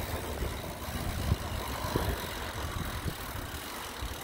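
Mountain bike rolling over rough ground, picked up through a handlebar-mounted phone: a low rumble of wind and riding noise with a couple of sharp knocks from the bike, easing off toward the end.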